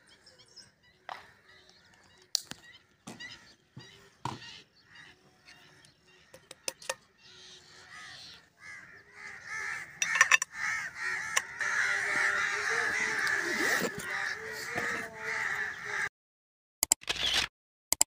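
Many birds calling outdoors, scattered at first and thickening about halfway through into a dense chorus of overlapping calls, which cuts off abruptly near the end.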